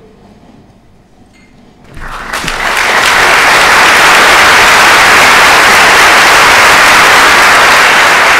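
Theatre audience applauding. After a quiet first two seconds the applause breaks out and quickly swells into loud, steady clapping.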